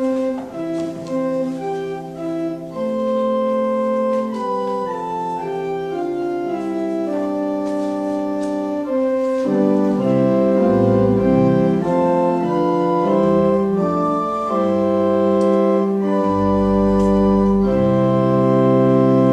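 Church organ playing the introduction to the hymn in sustained chords that change every second or so. Deep pedal bass notes come in about halfway through.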